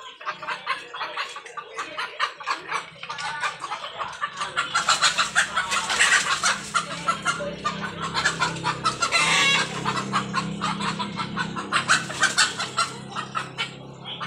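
Chickens squawking and cackling in a rapid, dense racket, loudest about five to six seconds in and again near the end: the alarm calls of a flock with a monitor lizard at the coop. A steady low hum runs underneath.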